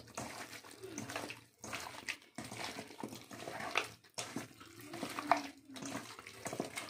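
Raw chicken pieces being mixed by hand with turmeric powder in a stainless steel bowl: irregular wet squelching and slapping of the meat, with a few brief pauses.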